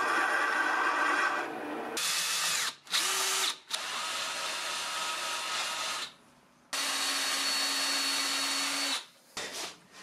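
A small lathe spinning a shiny metal part while a hand-held blade cuts into it, then a cordless drill drilling into a hammer head in several runs, stopping briefly about six seconds in and running again for about two seconds.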